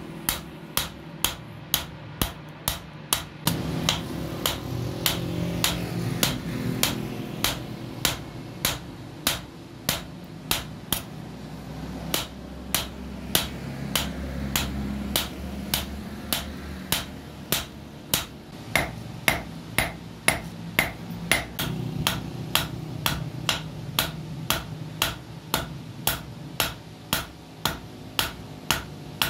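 Hand hammer striking a hot steel sickle blade on an anvil block: steady, sharp metallic blows about two a second, with a low steady hum underneath.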